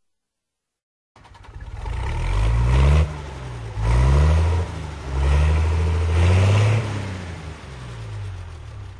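A vehicle engine accelerating hard, starting about a second in. Its pitch climbs and drops back three times, then it eases off and runs lower near the end.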